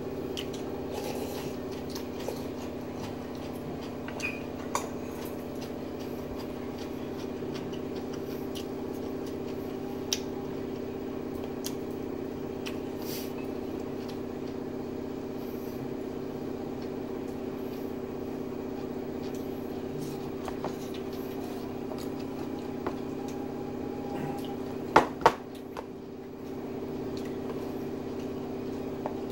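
A steady low hum with several fixed tones, with a few faint clinks of a spoon against dishes, and two sharp knocks in quick succession near the end.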